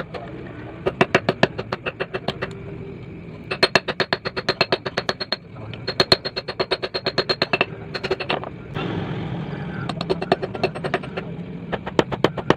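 Hand hammer striking a red-hot knife blank of old bearing steel on a steel plate and a small stake anvil, in quick runs of blows about five or six a second with short pauses between. Some runs ring out metallically. A steady low hum runs underneath.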